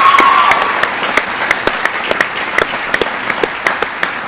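An assembly audience applauding, many people clapping. A brief high call rises above the clapping at the very start.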